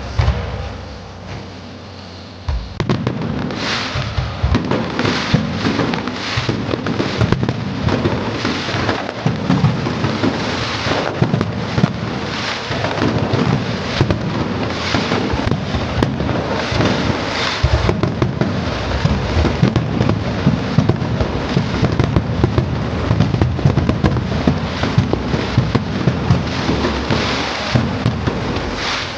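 Fireworks display: a bang at the start, then from about three seconds in a dense, continuous barrage of bangs and crackling.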